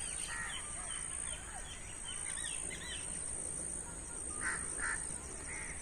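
Mixed evening birdsong: many small chirps throughout, with two short calls about four and a half seconds in; an Asian koel is among the birds calling.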